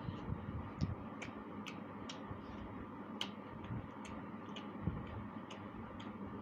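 Eating sounds: sharp, irregular mouth clicks and lip smacks, roughly two a second, from someone chewing a meal of fish curry and rice, over a steady low background hum.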